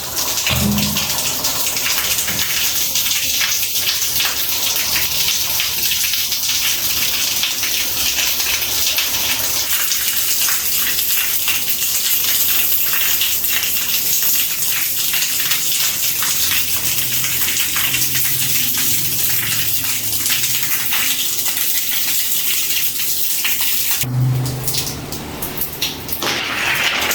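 Water gushing and spraying steadily, a dense hiss, with a change in the sound about 24 seconds in.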